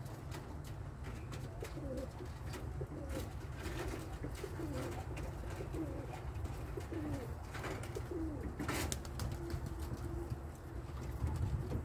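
Domestic pigeons cooing in courtship: a series of short, low, wavering coos, then a longer held coo, from a pair billing. A brief sharp sound about nine seconds in, over a steady low rumble.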